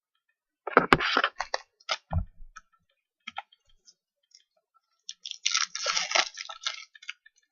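Crinkling and rustling of trading-card packs and cards being handled and opened, in short bursts about a second in and a longer crinkly stretch near the end, with a light knock on the table around two seconds in.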